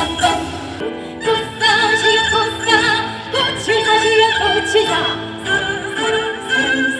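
Fusion gugak quartet playing live: a woman singing held notes with vibrato over violin, haegeum and gayageum.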